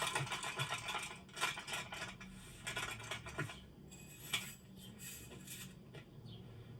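A clatter of small clicks and scrapes, dense for the first two seconds or so, then thinning to a few scattered single clicks.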